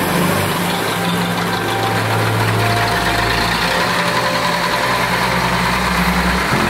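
Vintage tractor engine running steadily as the tractor pulls away and drives past, its note shifting near the end.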